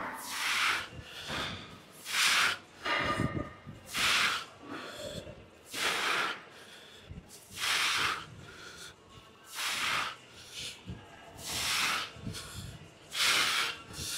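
A man breathing hard while doing walking lunges: a forceful exhale through the mouth about every two seconds, with quieter breaths between.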